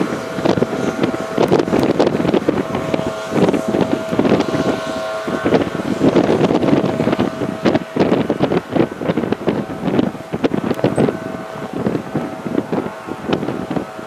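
Storm wind buffeting the microphone in heavy gusts over a Stadler electric train running past, which gives a steady mid-pitched electric hum that comes and goes under the wind.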